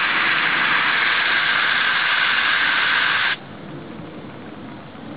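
Hose spraying water in a steady hiss, cut off suddenly about three seconds in.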